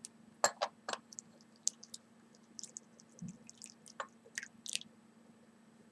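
Tea poured from a porcelain teapot through a metal tea strainer into a cup: a few light clicks, then short trickling splashes of liquid.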